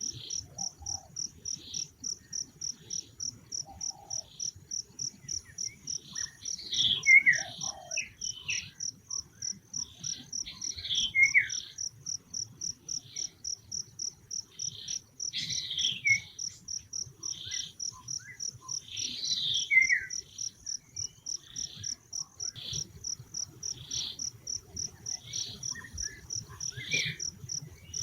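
Insects chirping in a steady, even pulse, about two pulses a second, with several louder short, high calls that rise in pitch breaking in over it.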